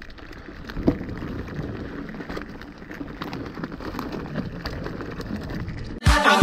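Mountain bike rolling over loose stony ground: tyres crunching and rattling over gravel with many small clicks and one sharp knock about a second in, growing gradually louder. Music with a heavy beat cuts in near the end.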